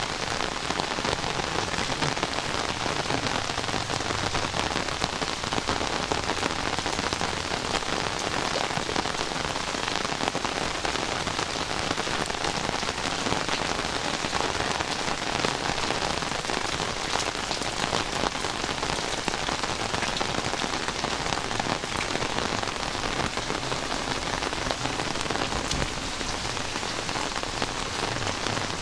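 Heavy rain falling steadily, a dense patter of drops hitting the surfaces close by.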